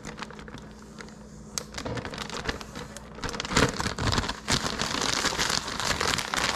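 Battered fish pieces going into hot frying grease. A few soft crinkles and clicks come first; about three seconds in the oil bursts into sizzling and popping, which grows louder into a steady crackle.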